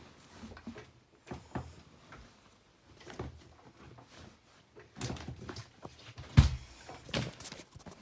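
Bosch WAN28281GB washing machine running, with irregular soft thuds and knocks from the drum. One louder thump comes about six seconds in.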